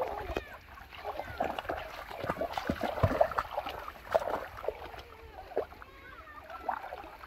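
Shallow muddy water splashing as a child's hands and feet churn through it, in an irregular run of splashes that is loudest around the middle.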